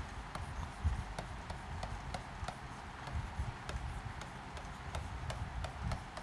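Pen stylus writing on a tablet screen: a run of small, irregular taps and clicks, a few a second, over a low rumble.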